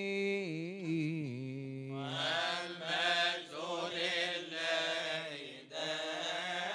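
A single man's voice in Coptic liturgical chant holds a long, winding melismatic line that ends about a second in. About two seconds in, a group of male deacons starts chanting the response together.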